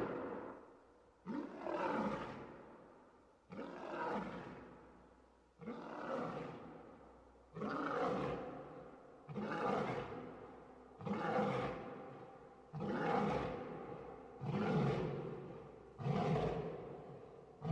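Lion roaring: a series of about nine roars, one every two seconds or so, each starting sharply and fading away.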